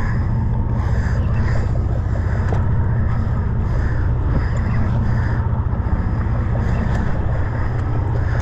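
Sportfishing boat's engine running steadily, a constant low hum heard from on deck.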